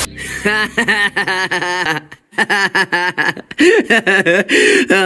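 A voice laughing in quick repeated pulses, in two runs with a short break about two seconds in.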